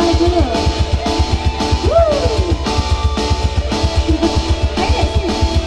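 Live stage music played through a PA: a keyboard with a fast, steady drum beat and held notes, with a singer's voice on microphone sliding through short phrases now and then.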